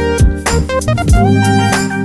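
Background music with a steady drum beat under held instrumental notes.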